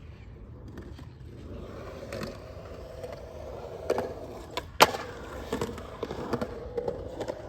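Skateboard rolling with a steady wheel rumble. There is one sharp clack of the board a little before five seconds in, and lighter clicks and knocks around it.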